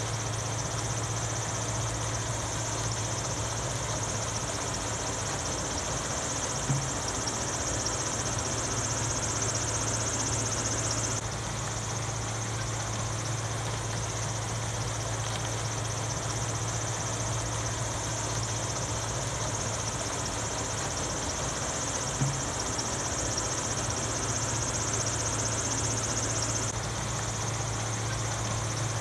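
Steady low engine hum with a high, even chirring over it. The same stretch repeats about every fifteen and a half seconds, with a soft click each time.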